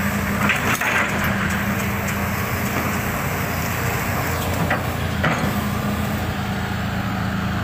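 Hydraulic excavator's diesel engine running steadily, a low even drone.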